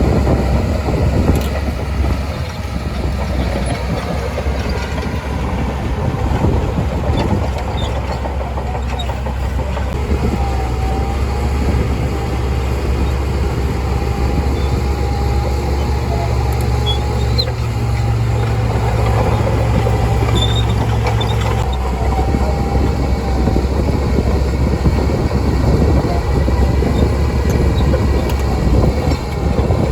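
Shantui DH17C2 crawler bulldozer's diesel engine running hard, with a rapid clatter of its running gear. A deeper engine note with a faint whine over it holds from about a third of the way in, then drops away suddenly about two-thirds through.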